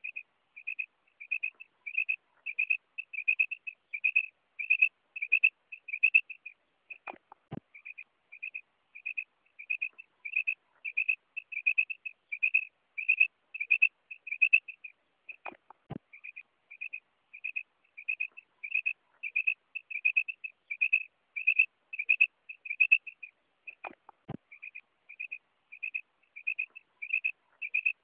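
Female common quail calling: a quick series of short, high notes, about three a second, in repeated runs. A faint low downward sweep comes about every eight seconds.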